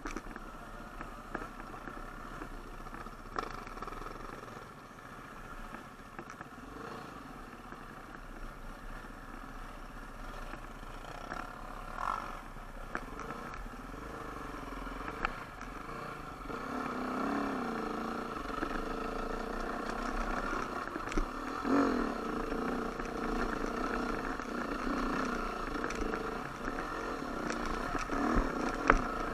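Off-road dirt bike engine running and revving up and down on a rough trail, louder and busier in the second half, with scattered short knocks.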